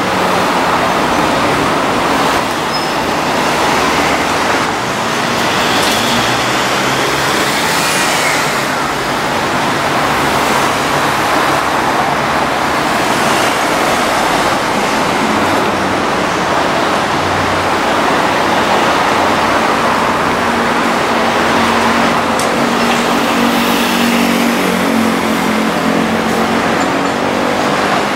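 Steady city road traffic with heavy diesel vehicles, including a large dump truck leaving a construction site. About twenty seconds in, a truck's engine note comes up and holds for several seconds.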